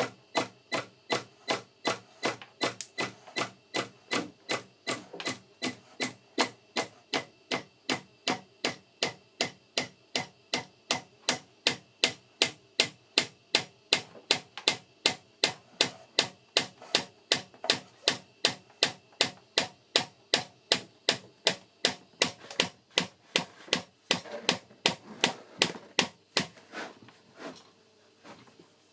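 Chlorine dosing pump on a water treatment system knocking in a fast, even rhythm of about two to three sharp strokes a second, the sign of the doser malfunctioning. The knocking falters and stops near the end.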